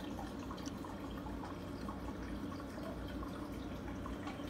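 Water in a shrimp aquarium trickling and bubbling steadily, with small scattered drips and splashes over a low steady hum.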